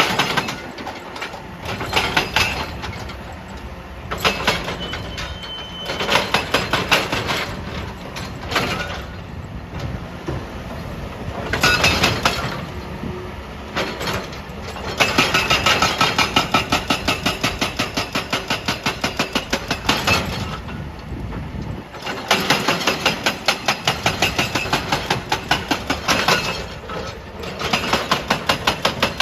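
Excavator-mounted hydraulic breaker hammering rock in runs of rapid, evenly spaced blows, with the excavator's diesel engine running in the gaps between runs. The longest runs of blows come about halfway through and near the end.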